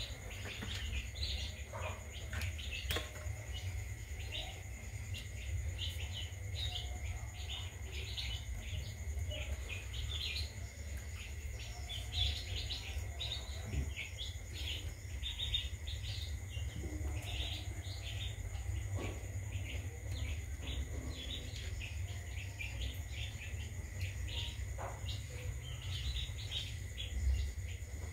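Dense, continuous high-pitched chirping, many short chirps overlapping without a pause, over a steady low hum.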